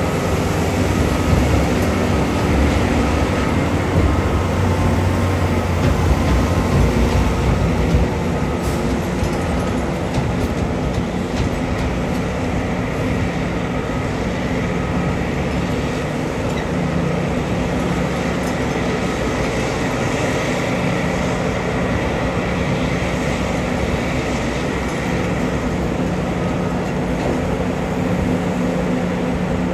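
Heavy mining machinery running steadily: the diesel engines and hydraulics of a Liebherr R9350 excavator loading a large dump truck, a low engine hum under dense mechanical noise, a little louder in the first eight seconds or so. A faint short beep repeats about once a second through roughly the first ten seconds.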